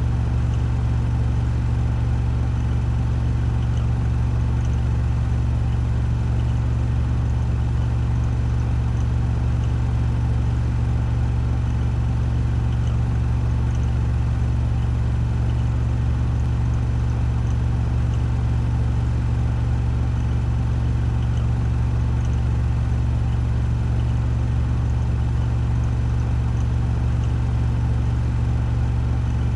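Washing machine on its spin cycle at 1400 rpm: a steady low hum that holds at one pitch and level.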